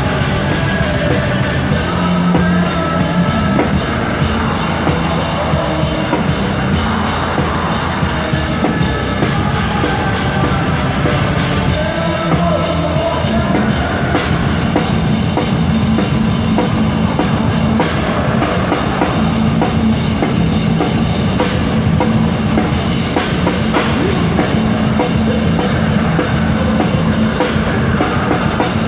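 Rock band playing live and loud, with the drum kit prominent.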